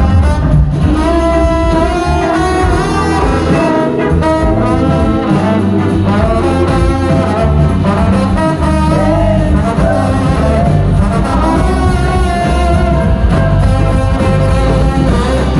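Live soul-rock band playing loudly, with the horn section carrying the lines over drums and bass; nobody is singing.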